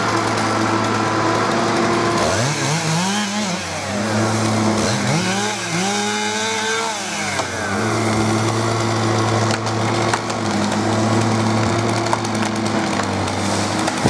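Chainsaw engine running steadily at idle. Between about two and eight seconds in, its pitch rises and falls twice before settling back to the steady idle.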